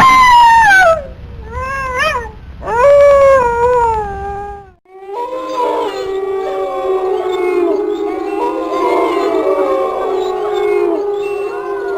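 Wolves howling: a few separate long howls sliding down in pitch, then, after an abrupt break about five seconds in, a pack chorus of many overlapping howls.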